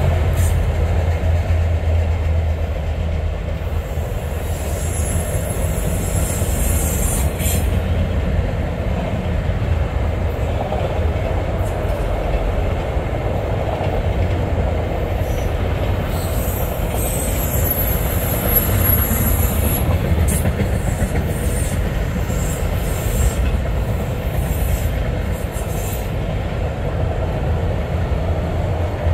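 Freight train cars rolling past with a steady, loud rumble of steel wheels on rail and clicks as the wheels cross rail joints. High-pitched wheel squeal rises over the rumble about four seconds in, and again a little past the middle.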